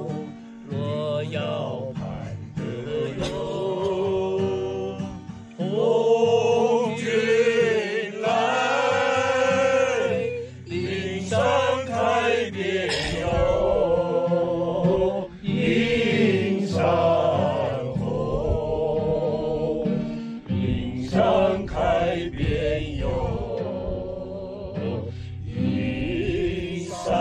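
A man singing a slow Chinese song into a handheld microphone, with long held notes, over acoustic guitar accompaniment.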